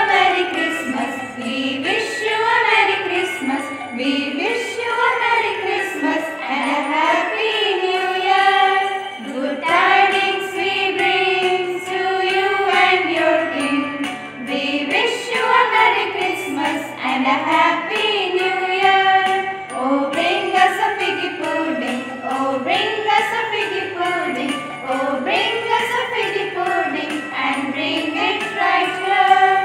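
A Christmas song playing: a sung melody over music with jingling bells.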